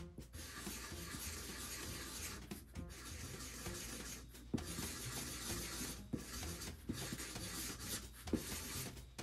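Sharpie marker scratching across the cardboard of a comic storage box in long drawing strokes, with brief pauses between strokes and a few sharper taps of the tip, the loudest about halfway and near the end.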